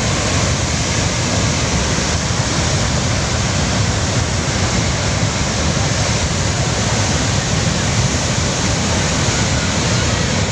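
Steady, loud rush of a swollen mountain river in flood.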